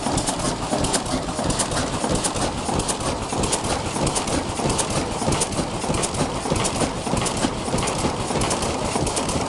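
1927 Atlas three-cylinder diesel tug boat engine running steadily, with a rapid, even clatter of knocks.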